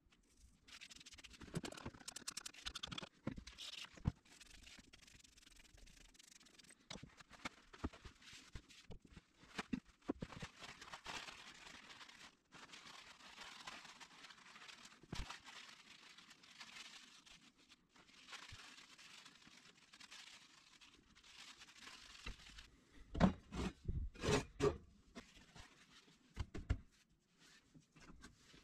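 Paper towel rustling and rubbing by hand as small screws, nuts and washers are wiped dry, with light clicks of the metal parts. A cluster of louder knocks near the end.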